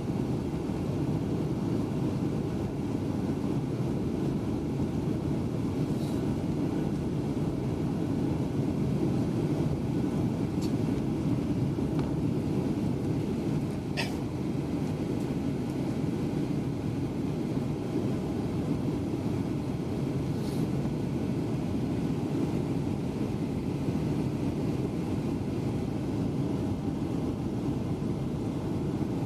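Steady low rumble of a Boeing 737-800's cabin, its CFM56-7B engines and airflow heard from a window seat, with a few faint clicks over it.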